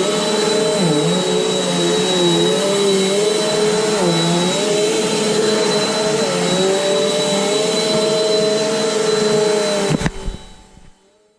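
Eureka Air Speed bagless upright vacuum cleaner running on carpet, a steady motor whine whose pitch dips briefly a few times. About ten seconds in it cuts off with a click and winds down.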